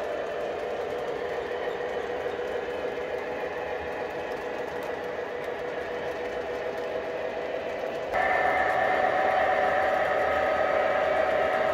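O scale model grain train running past: a steady rolling hum of wheels on track with a motor whine. About eight seconds in the sound suddenly steps up louder, with a higher whine.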